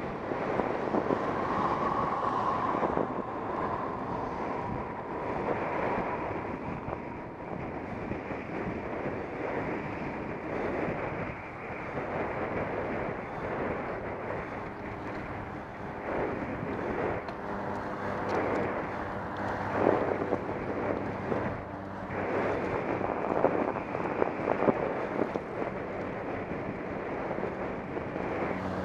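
Wind buffeting the microphone of a camera on a moving bicycle, over steady road noise. A low, steady hum joins past the middle.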